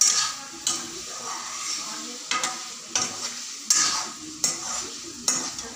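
A steel ladle scraping and clinking in a steel kadhai as a curry is stirred over a gas flame, about seven strokes, with a steady sizzle of frying underneath.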